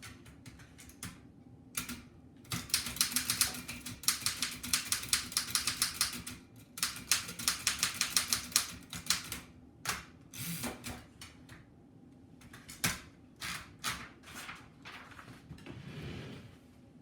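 Keys of an 1894 Densmore No. 1 typewriter being struck in fast typing. A dense, rapid run of clacks in the middle gives way to slower, scattered strikes near the end.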